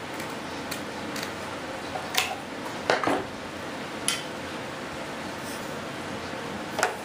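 Scattered light knocks and clinks as balsa wood pieces and small items are handled on a workbench, about seven separate taps, the loudest about three seconds in and another just before the end.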